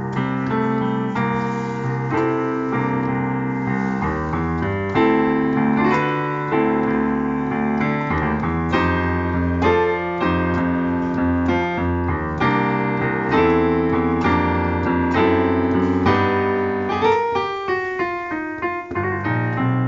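Digital piano playing a blues, a bass line under chords; about two seconds from the end a quick run of rising notes leads into the final chord.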